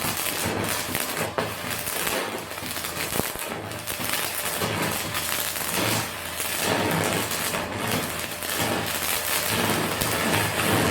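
Stick-welding arc from a Tesla Weld MMA 252 inverter with a 3 mm electrode, cutting through 4 mm steel: a dense, continuous crackle and sputter that stops suddenly at the end as the piece is cut off.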